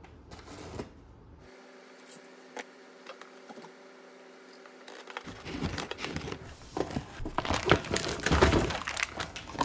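A faint steady hum for the first few seconds, then plastic packaging being crinkled and torn, with dense irregular crackling that is loudest near the end.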